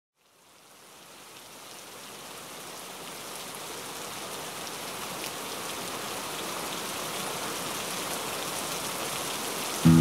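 Steady rain, a hiss of drops with faint patter, fading in from silence and growing louder. Music starts abruptly near the end.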